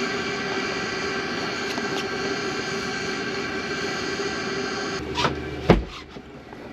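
Portable diesel heater running on high: a steady whine with a fixed pitch. About five seconds in it cuts off abruptly, and a few knocks and one loud thump follow.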